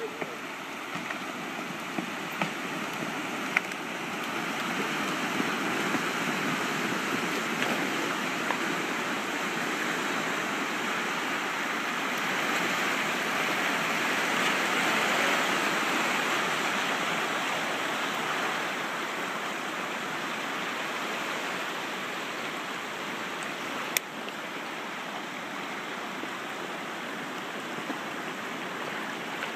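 Muddy swamp water surging and churning as the ground collapses into a sinkhole: a steady rushing, gurgling wash that swells toward the middle and then eases off. A few sharp snaps sound in it, once early and once near the end.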